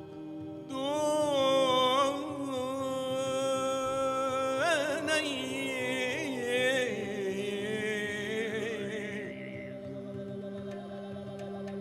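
Improvised chant-like singing: a voice holds long, wavering notes with wide vibrato over a steady sustained drone, starting about a second in and fading near the end, with a few faint taps at the close.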